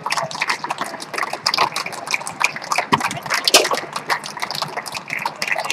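Tornado foosball table in play: a rapid, irregular run of sharp clacks as the hard ball is tapped and passed between the men and knocks against the rods and walls.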